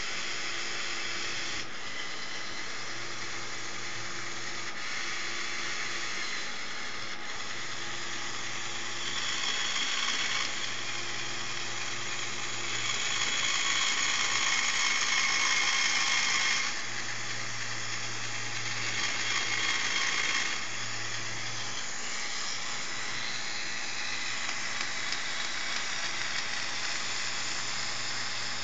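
Lego Power Functions XL motor running a Technic gear joint: a steady whirring and rattling of plastic gears. It grows louder for a few seconds at a time around the middle.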